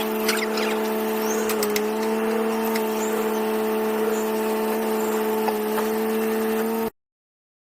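A vehicle engine running at a steady speed with an even hum, its pitch dipping briefly under two seconds in; the sound cuts off abruptly near the end.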